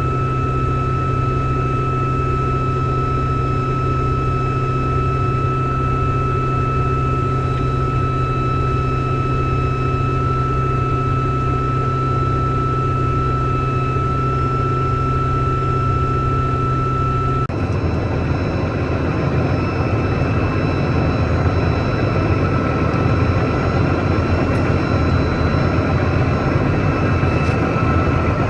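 Heavy farm machinery running steadily, an engine hum under a constant high whine. About two-thirds of the way through, the sound switches abruptly to a rougher, noisier running.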